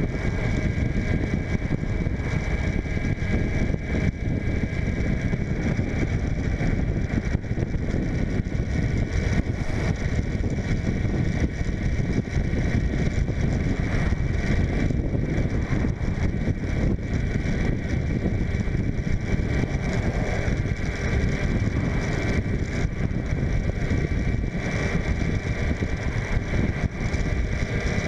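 2004 Suzuki GSF600 Bandit's inline-four engine running steadily at cruising speed, with wind rushing over the microphone.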